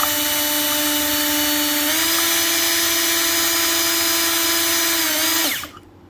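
Electric drill running steadily with a cobalt bit pressed against hardened HSS steel (HRC 68-70). The motor's whine steps up slightly in pitch about two seconds in, then winds down and stops near the end. The bit is not cutting: it leaves not even a scratch on the blade.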